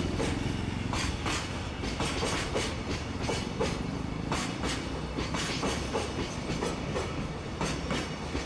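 Freight train of container wagons rolling past as it picks up speed. Its wheels clack over the rail joints in an irregular run of sharp clicks over a steady low rumble.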